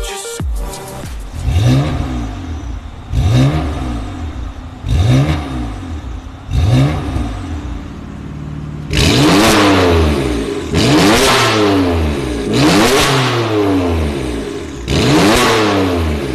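BMW M4 F82's twin-turbo straight-six, straight-piped through an ARMYTRIX turbo-back exhaust, revved again and again, each rev rising and falling in pitch. First come four short revs, then from about halfway a run of louder, longer and harsher revs.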